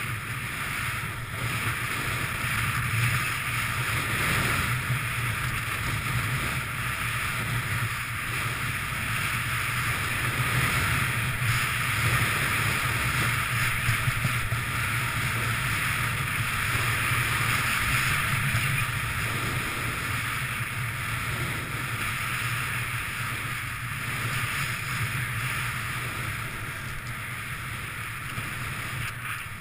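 Steady rushing noise of skiing downhill: skis sliding over groomed corduroy snow, with wind blowing over the camera worn by the skier.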